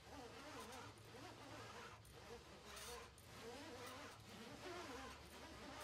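Faint, repeated rubbing of an alligator retrieval tool's thin flexible shaft as it is pushed by hand, stroke after stroke, into the working channel of an articulating guide tube's handset.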